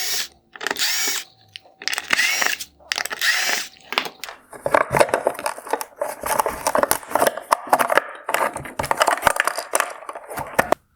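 A cordless power screwdriver whirs in three short bursts, its motor pitch rising in each, as it backs out the screws holding the brackets inside a plastic headlight housing. This is followed by several seconds of dense plastic clicking and rattling as parts and the wire harness are worked loose.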